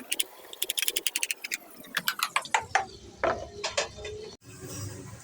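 Kitchen utensils clicking and tapping: a rapid run of light clicks, about a dozen a second, then slower scattered clicks and knocks.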